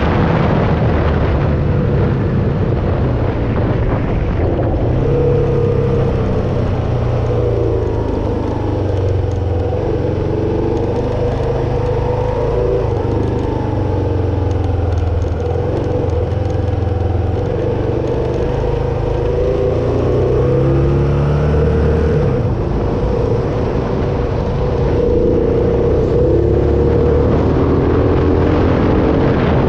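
Kawasaki KLR dual-sport motorcycle's single-cylinder engine running at road speed, its pitch slowly rising and falling as the revs change along the road, under steady wind and road noise.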